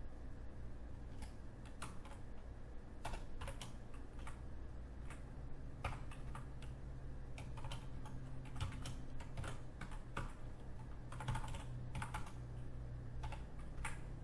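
Computer keyboard typing: scattered keystrokes in small irregular clusters, over a steady low hum.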